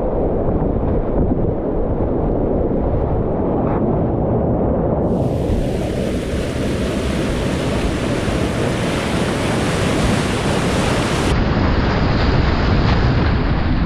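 Loud, steady roar of whitewater rapids around a kayak running them, with wind buffeting the microphone.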